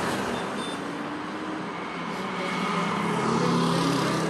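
Road traffic noise on a city street, with a vehicle's engine hum growing louder about three seconds in.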